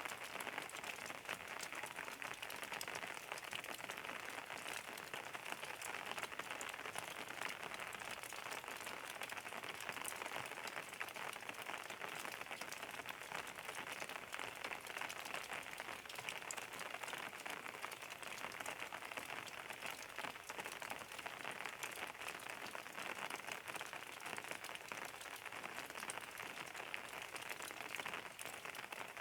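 Steady rain falling, a dense even patter of drops with fine drop ticks throughout.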